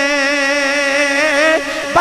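A man singing one long held note with a wavering, ornamented pitch, part of a sung Punjabi devotional verse.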